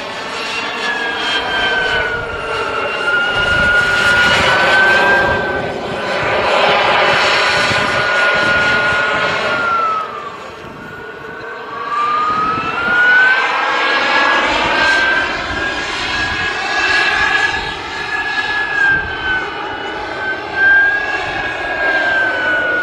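Radio-controlled model jet's engine running at speed overhead, a steady high whine whose pitch wavers as the jet manoeuvres. About ten seconds in the whine falls and fades, then rises and grows loud again.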